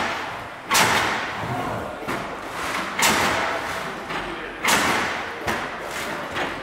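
AutoBox AB300 box-making machine working a sheet of corrugated board, with sharp thuds about a second, three and nearly five seconds in and lighter knocks between, each ringing on briefly.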